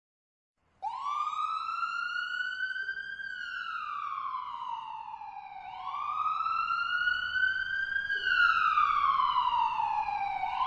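Ambulance siren on a slow wail, starting abruptly about a second in. Its pitch sweeps up and back down, each rise and fall taking about five seconds, and it grows louder toward the end as the ambulance approaches.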